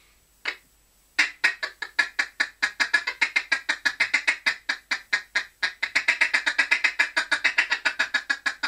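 Cadence duck call blown in a feed call: one short note, then from just over a second in a fast, even string of short 'tick' notes, imitating ducks feeding.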